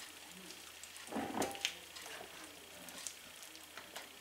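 Silicone spatula stirring thick pancake batter in a glass mixing bowl: faint wet squishing with scattered light scrapes and ticks against the glass, and one louder stroke about a second in, as the last dry flour is worked in.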